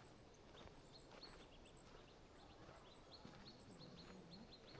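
Near-quiet outdoor ambience with faint, short, high bird chirps repeating at irregular intervals.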